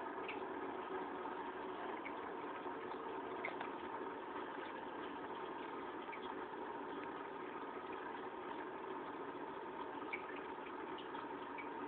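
Aquarium pump running with a steady hum, with faint scattered ticks.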